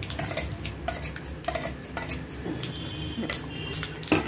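A metal spoon clinking and scraping against stainless steel dishes and a pan as spices are spooned in and stirred: a run of irregular light clinks, with a louder knock near the end.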